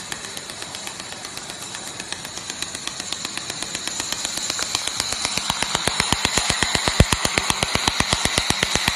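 500-watt handheld laser welder welding galvanized steel: a rapid, even ticking, about seven ticks a second, that grows louder over the second half, over a steady high whine and hiss.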